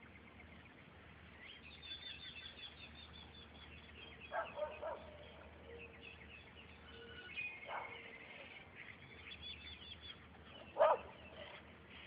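Small birds chirping and trilling in quick high notes, with a dog barking a few times, the loudest bark near the end.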